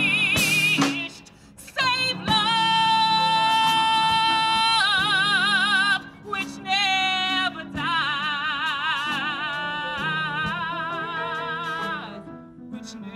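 A woman singing solo in a strong voice with wide vibrato, holding long notes, over piano accompaniment. Two long held notes are split by a short break and phrase near the middle.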